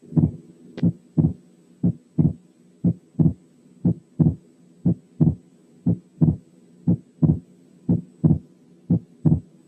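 Human heart sounds on an auscultation recording, with breath sounds filtered out: steady lub-dub beats about once a second. The second heart sound is widely split by the same amount in inspiration and in expiration. This is fixed splitting, a sign of an atrial septal defect.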